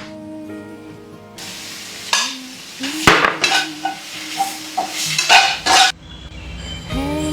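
Food sizzling in a pan while a metal utensil stirs, scrapes and clinks against it, over soft background music. The frying cuts off suddenly about six seconds in.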